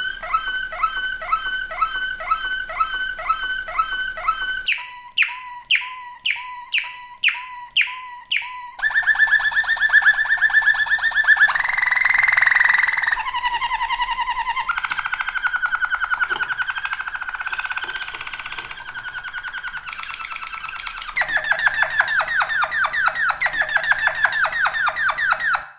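Malinois Waterslager canary singing, its song in distinct tours that change every few seconds: evenly repeated notes, then a run of falling notes about two a second, then fast rolling trills.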